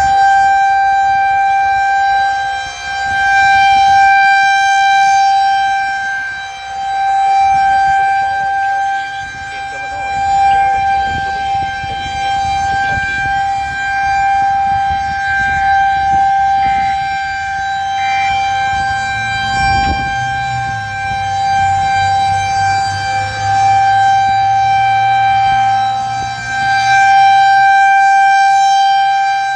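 Federal Signal 2001-130 rotating electromechanical warning siren sounding a steady, unchanging tone for a tornado warning. Its loudness swells and fades every few seconds as the horn turns. A low hum and a single thump come in about two-thirds of the way through.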